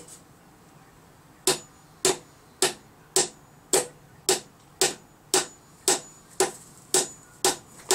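A metal hammer striking a nail into wood, steady blows about two a second, each with a short metallic ring. The blows start about a second and a half in.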